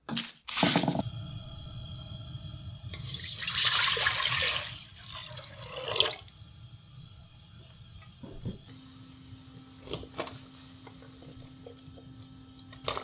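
A few knocks and rustles of bamboo shoot pieces being handled, then rice-washing water poured in a stream into an aluminium pot, splashing loudly for about three seconds and stopping about six seconds in.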